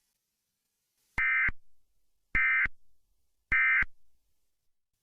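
Emergency Alert System end-of-message code: three short bursts of data tones a little over a second apart, signalling the end of the alert broadcast.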